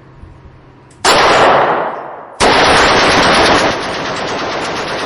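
Two bursts of automatic machine-gun fire on an indoor shooting range, echoing off the range. The first starts about a second in, and the second follows straight after as a long rapid string of shots that eases off in level and carries on.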